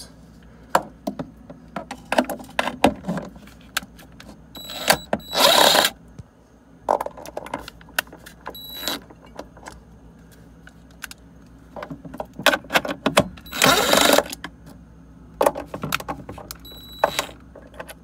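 Cordless drill with a nut-driver socket spinning out quarter-inch hex-head screws in short runs, the two longest about five and fourteen seconds in. Clicks and rattles of the socket seating on the screw heads come in between the runs.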